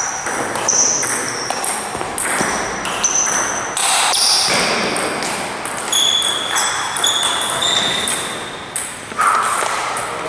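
Table tennis ball clicking off paddles and the table during a rally, with short, high pings as it strikes.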